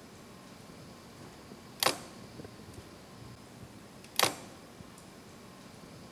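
Two sharp clicks, one about two seconds in and another about two seconds later, over a faint steady hiss.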